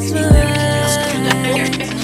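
Background music with sustained chords and a deep bass drum hit about a third of a second in.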